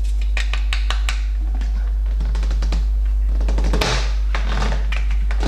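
Plastic fermenter bucket lid being pressed down and snapped onto the bucket's rim: a run of sharp plastic clicks and knocks, with one louder knock near the middle, over a steady low hum.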